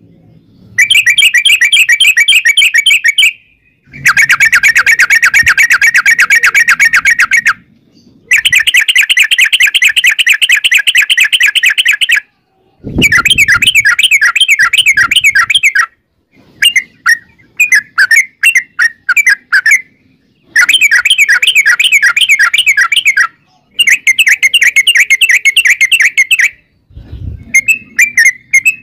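Yellow-vented bulbul (trucukan) singing a rapid rattling song: long runs of fast repeated notes lasting three to four seconds each, separated by short pauses, with choppier broken phrases in the middle. A low thud comes in briefly twice, about halfway and near the end.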